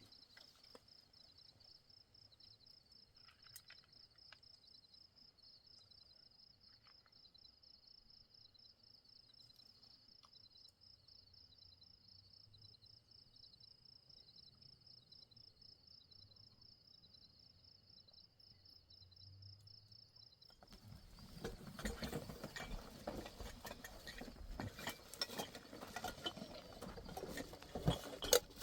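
A cricket trilling steadily in a fast, high-pitched pulsing run. After about twenty seconds, loud close rustling and crackling begins and covers it.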